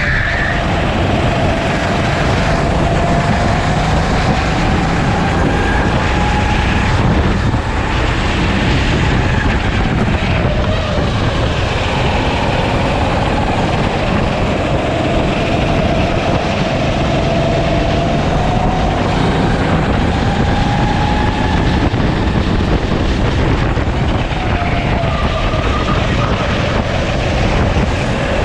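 Sodi rental kart's engine running hard under racing load, heard onboard. Its pitch climbs slowly as the kart gathers speed, then drops sharply as it slows for a corner, about three times.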